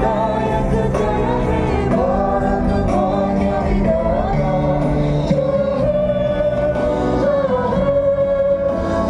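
Music with singing voices, choir-like, holding long sustained notes over a steady accompaniment.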